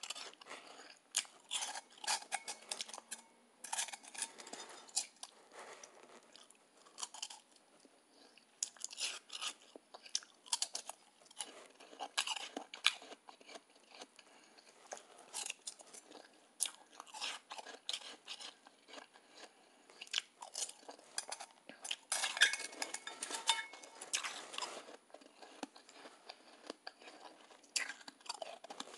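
Soft, fluffy blender ice being chewed close to the microphone: runs of crisp crunching and crackling bites with short pauses between mouthfuls, the loudest run a little past two-thirds of the way through.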